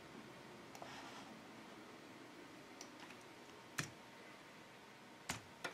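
Faint room hiss, broken by three short, sharp computer clicks: one about two-thirds of the way in, then two close together near the end.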